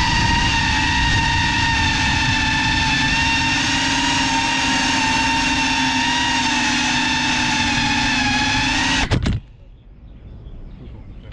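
GEPRC Cinelog 35 cinewhoop's brushless motors and ducted props spinning at idle on the ground with a steady high whine, picked up by the onboard GoPro. The whine cuts off suddenly about nine seconds in, as the motors stop.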